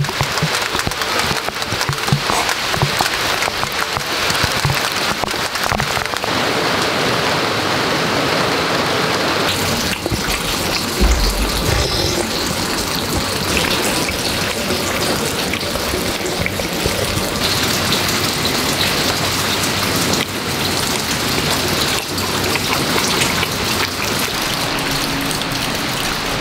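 Heavy rain falling in a sudden downpour: a steady, dense hiss of rain.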